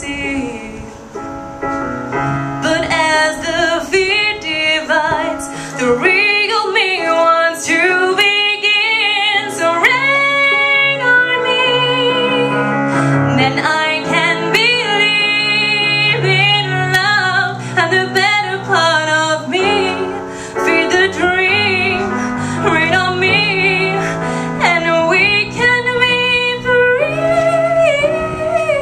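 A woman singing a slow musical-theatre ballad with wavering vibrato on held notes, over piano accompaniment.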